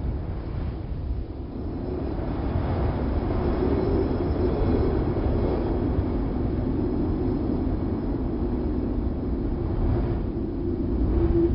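Wind sound effect: a low, rumbling rush of wind that swells and eases gently, with a faint steady whistle-like tone growing clearer near the end.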